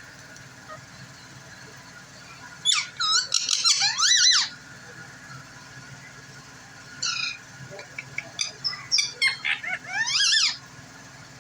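Green rose-ringed parakeet making high, squeaky chattering calls in two bursts, a couple of seconds apart.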